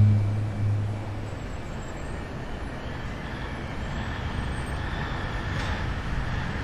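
Music fades out in the first second, leaving a steady vehicle running sound like road traffic.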